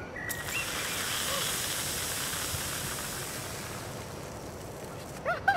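Diet Coke and Mentos geyser: a fizzing jet of cola spraying out of the bottle and falling back as a steady hiss. The hiss starts a moment in and slowly fades as the fountain dies down.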